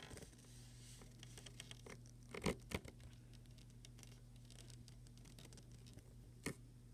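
Faint scratching and clicking of leopard geckos in their enclosure, with a few sharper ticks about two and a half seconds in and again near the end, over a steady low hum.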